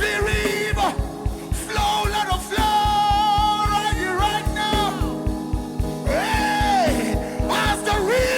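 Gospel worship song: a voice singing long held, sliding notes over sustained chords and a steady, fast low drum beat.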